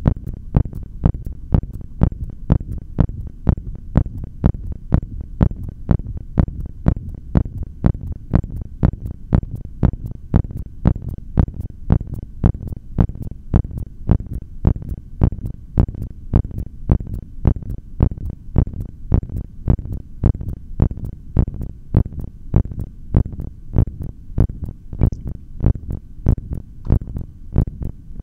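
Human heartbeat picked up through a stethoscope: steady, regular low thumps, about one and a half a second, early in a breath-hold on full lungs.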